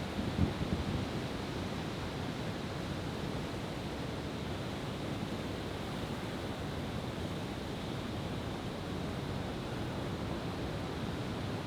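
Steady rush of ocean surf on the beach, with a short cluster of low thumps from fireworks about half a second in.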